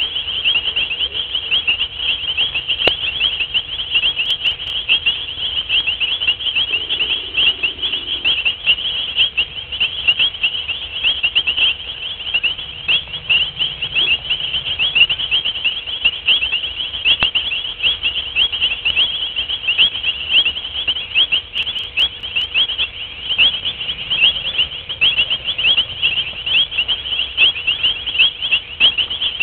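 Dense night chorus of many small callers chirping rapidly and overlapping in a steady, high-pitched pulsing.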